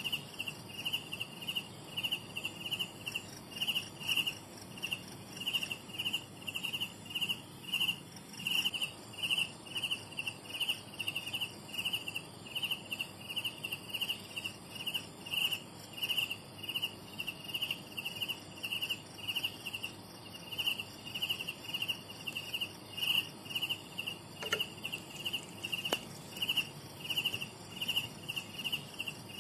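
Mole cricket calling: a steady series of short, high-pitched chirps, about two to three a second, each a quick buzzing trill.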